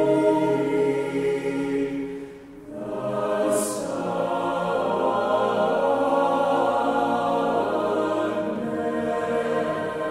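Mixed chamber choir singing a cappella in held, sustained chords in a church. About two seconds in the sound dips briefly between phrases, then the choir comes back in together, with a short hissed 's' consonant, and holds the chords on.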